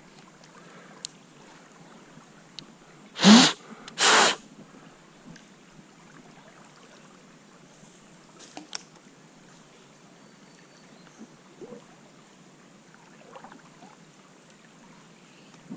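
Two loud, sharp blasts of breath from a person about three seconds in, a little under a second apart, over the faint steady wash of the stream.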